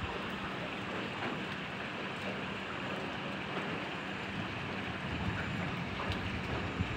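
Steady light rain falling, a continuous patter with scattered faint drips.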